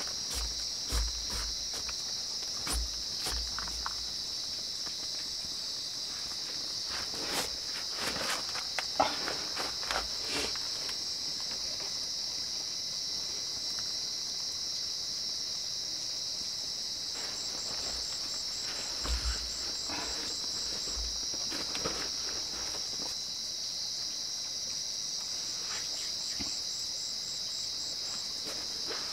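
Night insect chorus, crickets among them: a steady high-pitched drone, with a second insect's rapid pulsing trill coming in twice in the second half. Scattered short clicks and rustles sound over it.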